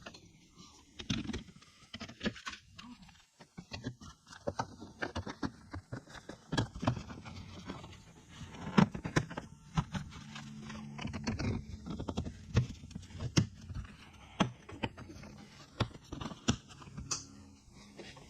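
Irregular sharp clicks and knocks with some scraping, from hands handling parts and hardware during car body reassembly.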